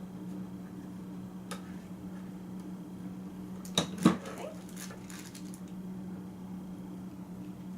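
Plastic Tupperware containers being handled: a light click, then a short cluster of knocks and clatter about four seconds in, over a steady low hum.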